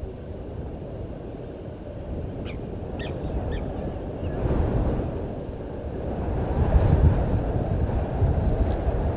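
Wind buffeting the microphone: a rough low rumble that grows stronger and gustier over the seconds. A few faint, short bird chirps come about three seconds in.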